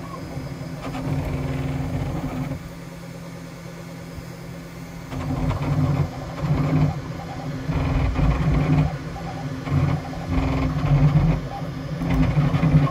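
Bambu Lab X1 Carbon 3D printer printing at high speed: its motors buzz in quick, uneven stretches that change in pitch as the toolhead darts about, over a steady hum. The machine is shaking the table it stands on.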